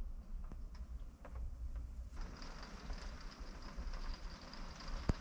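Small scattered clicks and taps of parts being handled, then a steady hiss that comes in suddenly about two seconds in, and one sharp knock near the end.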